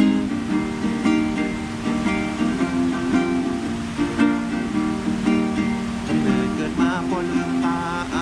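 Plucked acoustic string instrument playing a rhythmic song accompaniment, with a wavering higher melody line coming in near the end.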